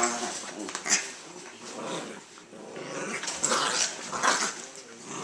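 Two small dogs play-growling as they wrestle, with scuffling and rubbing of their bodies and paws on a leather couch.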